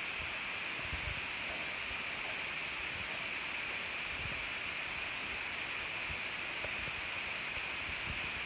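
Steady hiss of room tone and recording noise, with a few soft low thumps from footsteps and handling as the camera is carried through the rooms.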